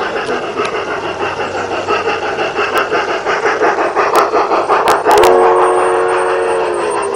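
Large-scale garden-railway model steam locomotive running past with a quick rhythmic chuff that grows louder as it nears, with a few sharp clicks. About five seconds in its whistle blows, several notes at once, held steady and dipping slightly in pitch near the end.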